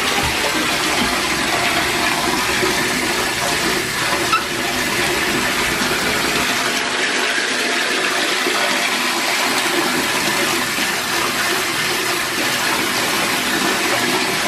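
Bathtub tap running, water pouring into a filling tub with a steady rush.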